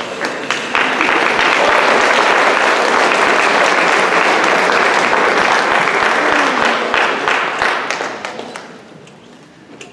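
Audience applauding, swelling about a second in, holding steady, then dying away near the end, as a scene closes.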